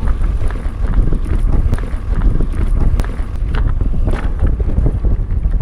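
Wind buffeting the microphone of a mountain biker's action camera as the bike descends a dirt and gravel trail, a steady low rumble with the tyres rolling over loose stones and short rattling clicks from the bike.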